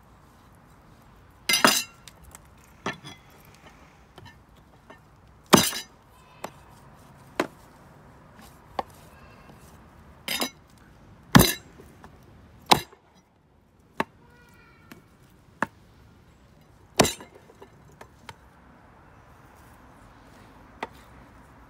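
Kitchen utensils and dishes knocking and clinking during food preparation: about a dozen separate sharp knocks at irregular intervals, four or five of them much louder than the rest.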